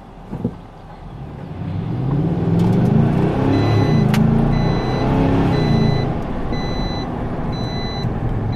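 Nissan Titan's V8 pulling away at part throttle, heard from inside the cab. The engine note builds over a couple of seconds into a low rumble and then holds as the truck gets moving. A high electronic chime beeps about once a second through the second half.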